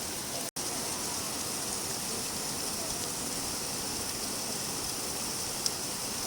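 Steady rainfall, an even hiss heaviest in the upper range. It cuts out completely for a split second about half a second in, and there is a faint single tick near the end.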